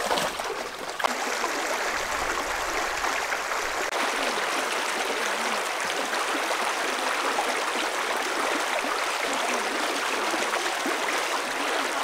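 Shallow river running over rocks: a steady rush of flowing water.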